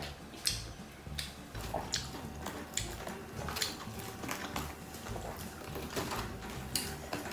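Wooden chopsticks clicking and tapping against a plastic food tray while picking up pieces of fried sweet and sour pork: sharp, irregular clicks, about one or two a second.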